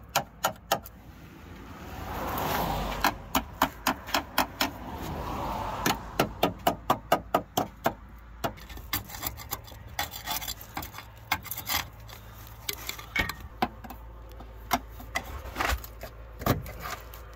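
Steel pry bar jabbing and scraping against a rusty truck frame: quick runs of sharp metallic taps, about four or five a second, with a couple of scraping passes, probing whether the rust has eaten through the steel.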